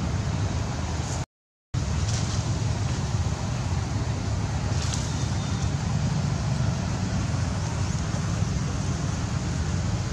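Steady outdoor background rumble with a hiss above it, cutting out completely for a moment about a second and a half in.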